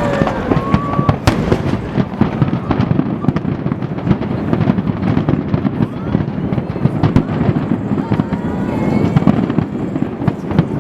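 Fireworks display: a dense, continuous barrage of rapid bursts and crackling, with no break.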